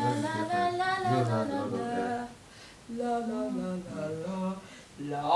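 A woman singing a wordless, unaccompanied melody, in two phrases with a short break near the middle.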